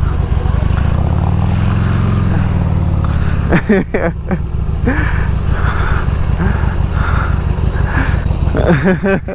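Motorcycle engine running as the bike rides off, its pitch rising as it accelerates about a second in, then easing off and running on steadily.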